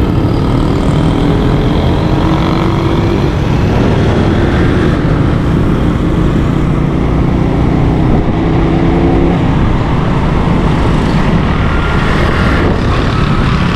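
Motorcycle engine running while riding along a road, mixed with steady wind and road noise on the microphone.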